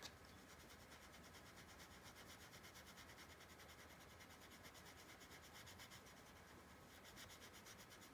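Faint rubbing of a colourless blender pen's brush nib on textured paper, worked back and forth in quick, even strokes to blend coloured pencil.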